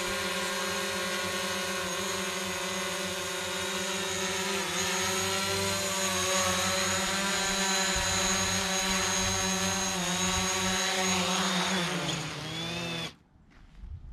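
DJI Mavic Pro quadcopter's motors and propellers whirring in a steady high buzz as it comes in to land. About twelve seconds in the pitch falls as the motors spin down on the pad, and the sound cuts off suddenly a second later.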